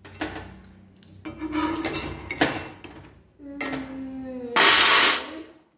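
Roasted peanuts scooped out of a metal kadai with a steel slotted spoon and tipped onto a steel plate, making metal clinks and knocks. The loudest part is a rattle of nuts spilling onto the plate near the end.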